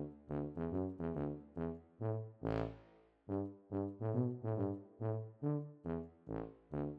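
Background music: a bouncy brass tune of short, detached notes in a steady rhythm, with a sharp hit about two and a half seconds in and another near six seconds.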